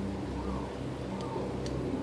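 A steady low hum runs throughout, with two faint ticks in the second half, like small hand-tool or screw contacts.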